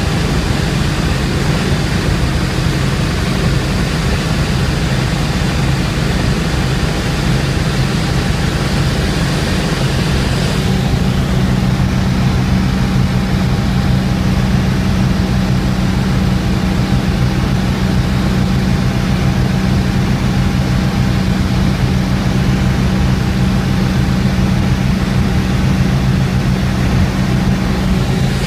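Cabin noise of a Bell 430 twin-turbine helicopter in forward flight: a steady, loud drone of engines and rotor with a low hum. About ten seconds in the high hiss drops and the low hum grows stronger.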